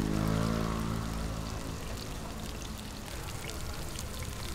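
Liquid poured into a large flat pan of pan-fried pork dumplings and buns, over a steady hum that fades out in the first three seconds. After that comes light, scattered crackling of sizzling in the pan.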